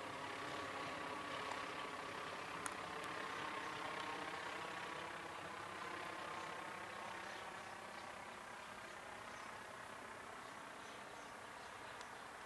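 A Cessna 150's four-cylinder Continental O-200 engine and propeller droning steadily as the plane passes overhead and flies away. The sound slowly fades over the second half.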